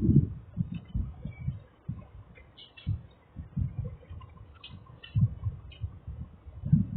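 A person chewing food close to the microphone: irregular soft low thuds, several a second, with now and then a faint wet click.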